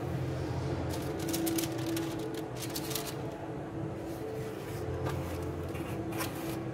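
Paper rustling and crinkling as a brown paper liner is lifted out of a cardboard chocolate box, in two spells, over a steady low hum.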